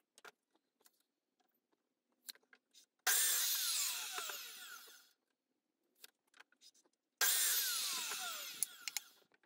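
Electric mitre saw cutting timber twice, about three seconds in and again about seven seconds in; each time it starts suddenly and the motor's whine falls as the blade winds down. Faint clicks and knocks of wood being handled between the cuts.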